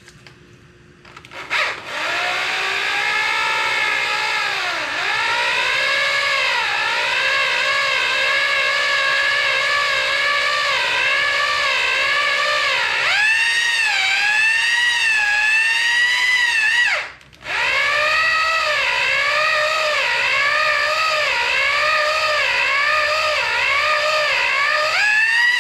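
Electric drill spinning the mixing shaft of a two-part Semkit sealant cartridge. Its motor whine dips in pitch and recovers over and over as the shaft is worked up and down through the glue. The drill stops briefly about two-thirds of the way through, then starts again.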